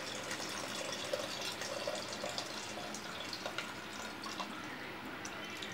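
Tamarind water being squeezed by hand in a steel bowl and poured into the curry pot: steady trickling and splashing of liquid, with a few small clicks against the steel.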